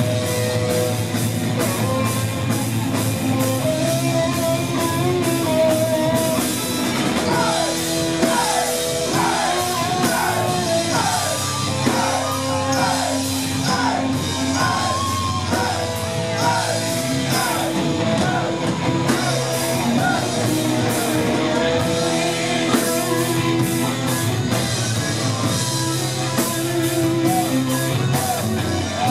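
Live heavy metal band playing loud: distorted electric guitars, bass and a drum kit at a fast pace, with a run of quick bending lead notes through the middle.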